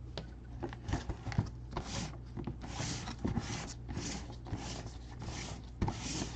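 Gloved hands handling a white cardboard box: a run of short scraping, rubbing swishes of cardboard, with a few light knocks as it is turned and set down.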